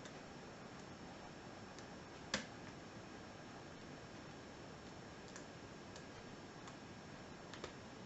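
Lock pick and tension wrench working the pins of a 7-pin Sargent mortise cylinder during single pin picking: sparse faint ticks, with one sharp click a little over two seconds in and another near the end.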